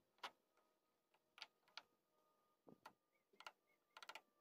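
Faint, scattered clicks and taps of pliers and a screwdriver against the metal parts of an 18 HP Briggs & Stratton V-twin carburetor as it is taken apart, with a quick run of clicks near the end.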